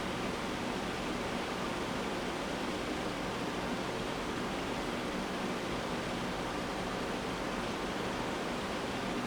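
Steady, even background hiss with no other events.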